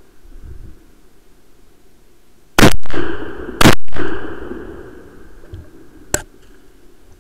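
Two loud gunshots from a hunting gun about a second apart, each followed by an echo that fades over about a second, then a single quieter sharp crack about two and a half seconds later.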